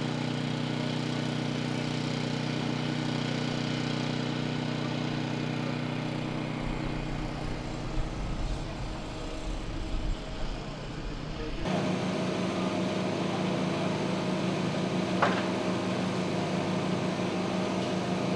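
An engine running steady and even, with its tone changing abruptly about twelve seconds in. A brief higher-pitched sound comes a few seconds later.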